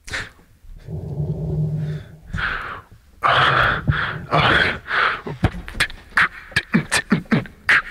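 Man beatboxing into a cupped microphone. First a low hum and breathy hisses, then from about five seconds in a quick rhythm of sharp percussive clicks and kicks.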